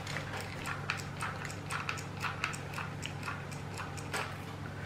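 Irregular light clicking from a mini hot glue gun being squeezed as hot glue is laid along a cardboard cut-out, over a steady low hum.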